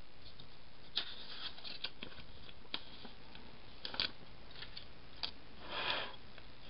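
Paper sticker sheets being handled: a handful of light paper clicks and crinkles, then a short rustle of paper near the end.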